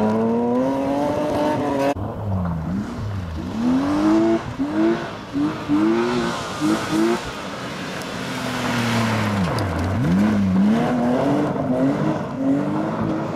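BMW E30 rally car accelerating away on gravel, its engine note rising, then a BMW E36 coupe rally car driven hard on gravel: a rapid series of short rev rises on and off the throttle, a long falling engine note as it passes, then revving up again as it pulls away.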